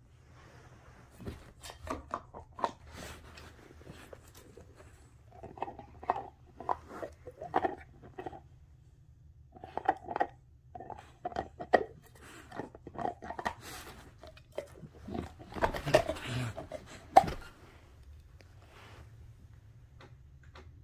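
Bull terrier gnawing a hard chew toy: irregular crunching and clicking of teeth on the toy in bursts with short pauses, the loudest a sharp crack near the end of the chewing. It stops a few seconds before the end.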